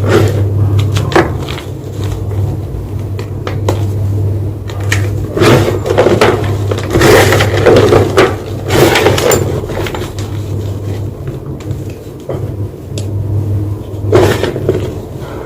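White gym chalk crunching and crumbling in close-up: scattered sharp cracks, then dense bursts of crunching in the middle and another near the end, over a steady low hum.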